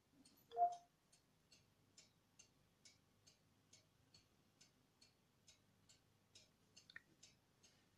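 Faint, regular ticking, about two ticks a second, in a quiet room. It follows a brief soft tone about half a second in.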